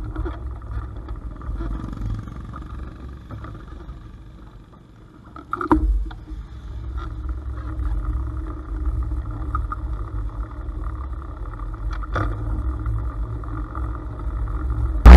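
Small Honda Cub 90 motorcycles with single-cylinder four-stroke engines moving slowly, heard as a steady low rumble with wind on a bike-mounted camera. Two sharp knocks stand out, the louder about six seconds in and another about twelve seconds in.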